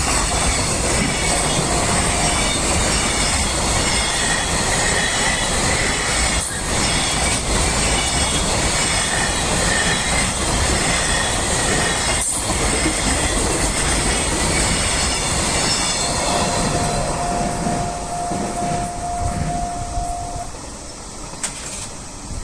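Train passing close by over a level crossing: steady wheel-on-rail running noise with clickety-clack over the rail joints. The train noise eases off over the last few seconds while a steady tone sounds.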